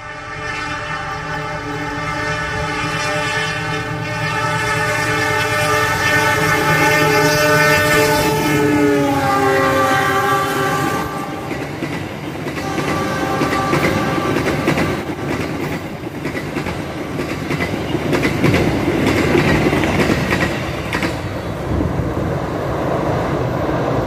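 CC206 diesel locomotive's horn sounding one long continuous blast, its pitch dropping about nine seconds in as the locomotive passes, fading out around eleven seconds. Then the passenger coaches run past, their wheels clickety-clacking over rail joints.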